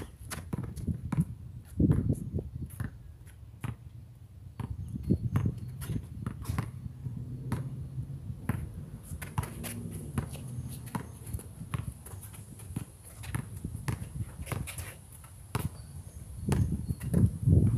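A basketball bouncing and being dribbled on a concrete court, with sneakers scuffing and stepping; the knocks come irregularly throughout.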